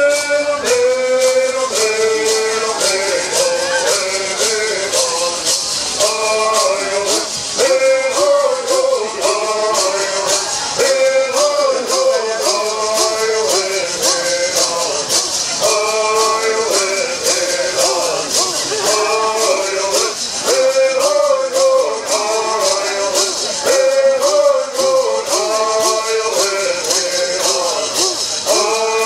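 Southern California bird song: a group of male singers singing in unison in repeating phrases, over the steady rapid shaking of gourd rattles.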